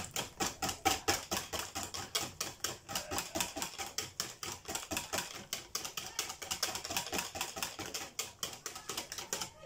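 Metal wire whisk beating crêpe batter in a bowl, clicking against the bowl's sides in a fast, even rhythm of about five strokes a second.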